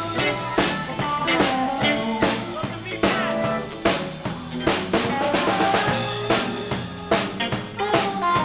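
Small live band playing a blues tune: drum kit keeping a steady beat, electric guitar and bass guitar, with a trumpet.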